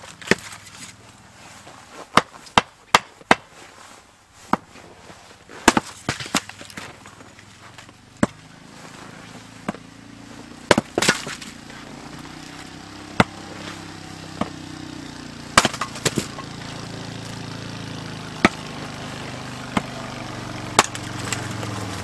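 An axe splitting firewood on a chopping block: a run of sharp, irregular cracks and knocks as blades strike the logs and split pieces fall. From about eight seconds in, a steady engine hum rises underneath and is loudest near the end.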